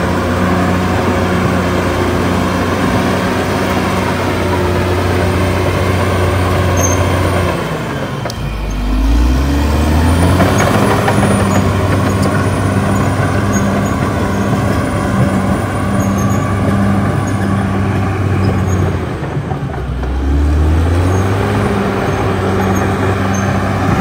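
Caterpillar D6R XL bulldozer's six-cylinder diesel engine running hard while the dozer pushes soil. Its revs drop twice, about eight and nineteen seconds in, and climb back up each time.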